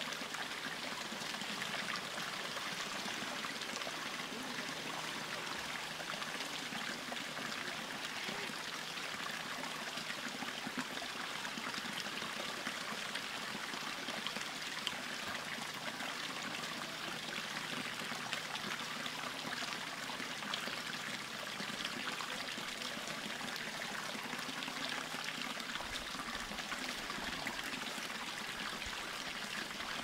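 Freshwater spring water flowing steadily over rocks in a shallow channel, a continuous trickling and pouring.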